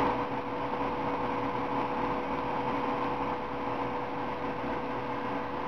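Steady background hum and hiss with a constant tone, unchanging throughout, like a fan or appliance running in the room; no distinct handling sounds stand out.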